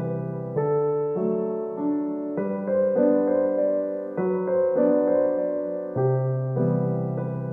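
Piano background music: chords struck about every half second, each fading before the next.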